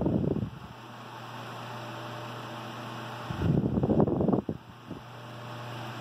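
Emerson B Jr. 8-inch cast-iron desk fan running with a steady motor hum. As the oscillating head swings past, its airflow buffets the microphone in loud rumbling gusts: one fading about half a second in, another from about three to four and a half seconds in.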